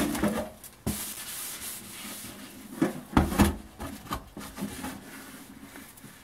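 Bare steel machine-gun ammunition box handled with gloved hands: a sharp knock at the start, then scraping and rubbing of glove and metal, with a cluster of clanks about three seconds in as the box is moved and its carry handle is raised.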